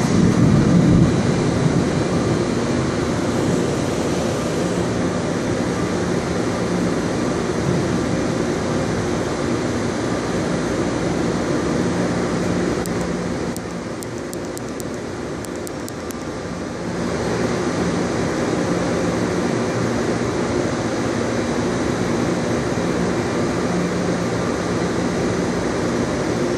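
Steady drone of airport machinery over an even rushing noise, with a low hum throughout. It drops quieter for about three seconds in the middle.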